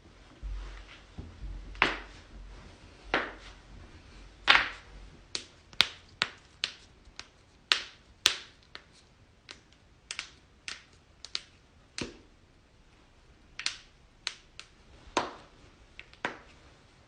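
Joints cracking: a long, irregular run of sharp pops and clicks, more than twenty of them, the loudest in the first five seconds over a low rumble.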